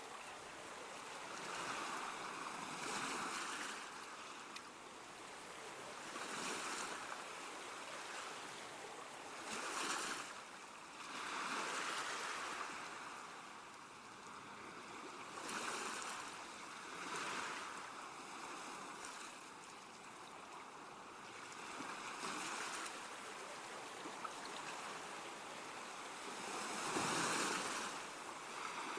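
Ocean surf: waves washing in one after another, each swelling and fading over a second or two at irregular intervals of a few seconds, the loudest near the end.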